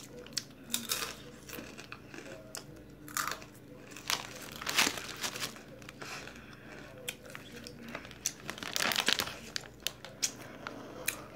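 Crinkling of a Takis chip bag being handled and rummaged in: a run of scattered crackles with louder rustles about three, five and nine seconds in.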